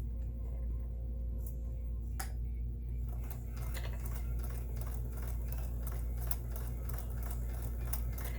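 Kenmore 158.1760 sewing machine running, its needle stitching with rapid, regular clicks over a steady motor hum. The stitching clicks become steady about two to three seconds in.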